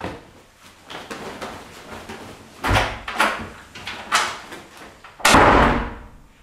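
A few knocks and thuds as someone walks off, then a door slams shut about five seconds in, the loudest and heaviest sound.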